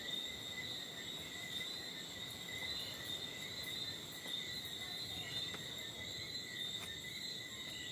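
Night insects (crickets) chirring in a continuous, steady high-pitched chorus over a low hiss with a few faint clicks.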